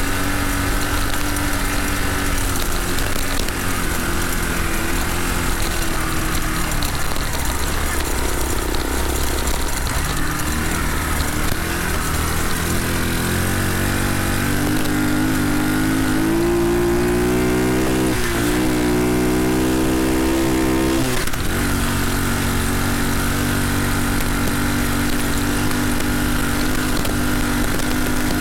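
Small horizontal single-cylinder four-stroke engine of a Honda CT70-clone mini bike running under way. Its pitch climbs about halfway through, dips sharply twice, then holds steady.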